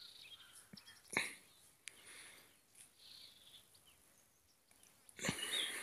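Faint background ambience with insect-like chirping and a short click about a second in. Just before the end a louder outdoor noise begins, with small bird-like chirps.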